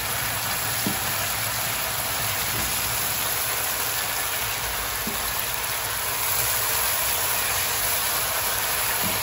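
Lobster tails and sauce sizzling in a hot wok: a steady frying hiss over a low hum, with a few faint clicks of utensils against the food.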